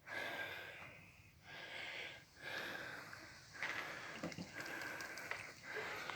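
A man breathing hard in long, hissy breaths in and out, winded from spinning a hand drill to an ember.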